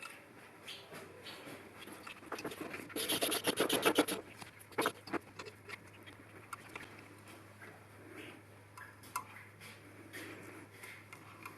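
Metal scraping and rasping as broken bolt fragments are worked out of a threaded hole in an exhaust manifold, with scattered small clicks and a louder grating spell about three to four seconds in.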